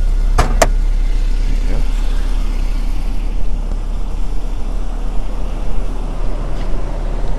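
Hood release lever pulled on a 1996 Toyota Estima Lucinda: two sharp clicks about half a second in as the hood latch lets go, over a steady low rumble from the idling 2.4-litre four-cylinder engine.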